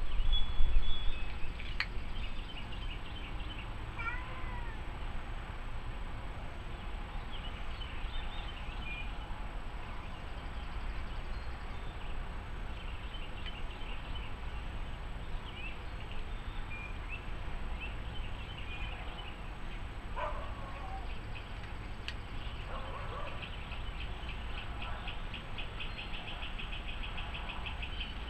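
A cat meowing a few short times over steady outdoor background, with scattered faint chirps and a quick run of ticks near the end. A gust of wind rumbles on the microphone at the start.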